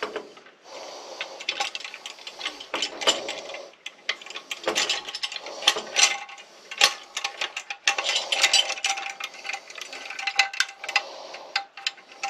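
Hand lever winch with a double ratchet wheel being worked: the pawls click over the ratchet teeth in irregular runs, mixed with metallic clanks of the mechanism being handled.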